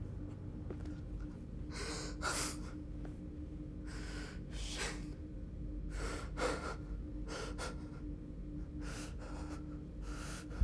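A man breathing in sharp, gasping breaths while grieving, about six breaths a second or two apart, over a faint steady hum.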